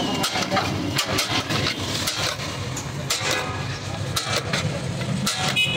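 A metal serving spoon scraping and clinking against the inside of a large metal biryani deg as rice is scooped out: a string of short irregular clinks and scrapes over a steady low background rumble.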